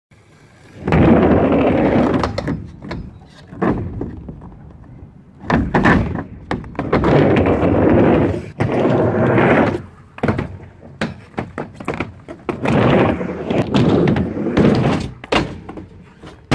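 Skateboard wheels rolling across a concrete miniramp in three long runs, broken by sharp clacks of the board's tail and trucks striking the ramp and coping.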